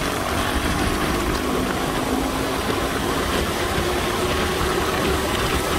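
Steady vehicle noise from riding in traffic on a wet road: an engine's hum under road and traffic noise, with a rumbling low end.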